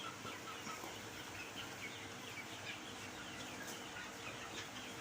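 A flock of poultry chicks peeping continuously, many short falling chirps overlapping, with a faint steady hum underneath.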